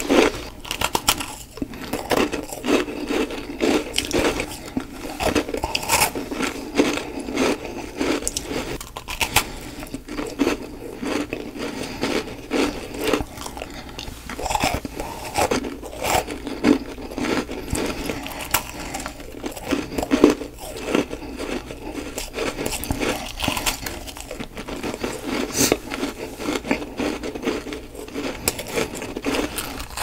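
A person biting and chewing chunks of humidifier frost: continuous dense crunching and crackling, with sharp louder bites every second or so.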